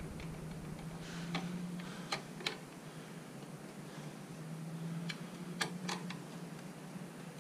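Scattered sharp metal clicks of an Allen key working in a motorcycle gear lever's pivot bolt as the bolt is tightened, about half a dozen in all. A faint low hum comes and goes behind them.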